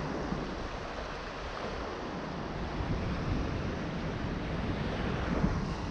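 Wind buffeting the microphone with a steady, rumbling noise, over the wash of small waves breaking on the beach.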